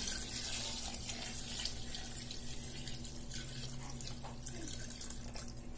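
Water poured in a steady stream from a steel vessel into a large pot of chicken gravy, splashing into the liquid.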